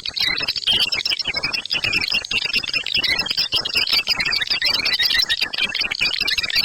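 Swiftlet lure call of the 'ceklok' type: a dense, unbroken chorus of rapid high chirps and clicks from swiftlets, the recording played in bird-nest houses to draw swiftlets in to roost and nest.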